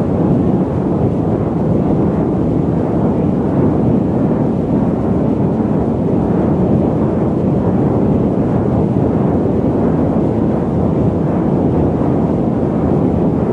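Steady, low jet-airliner cabin noise during cruise: an even rumble and roar with no breaks or changes.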